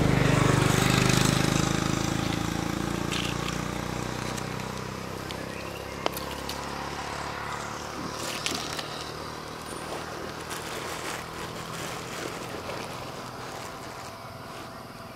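A motor vehicle passing along the road, its engine loudest in the first couple of seconds and then slowly fading away. A few sharp clicks follow later on.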